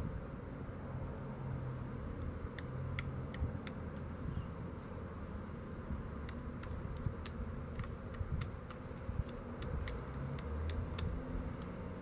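Pressure flaking a stone biface held on a leather pad: small sharp clicks as flakes pop off the edge, a few about three seconds in, then a run of a dozen or so at roughly two a second in the second half. A low steady hum lies underneath.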